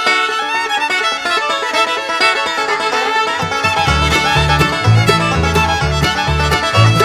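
Bluegrass-style background music led by fiddle with plucked strings, and a bass line coming in about three and a half seconds in.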